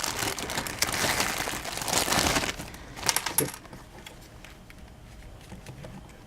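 Plastic packaging crinkling and crackling as it is handled for about two and a half seconds, followed by a few sharp clicks, then quiet handling noise.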